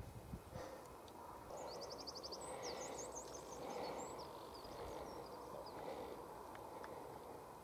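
A small bird singing faintly: a quick trill about one and a half seconds in, then a run of fast high chirps over the next few seconds, over a low rumble of wind on the microphone.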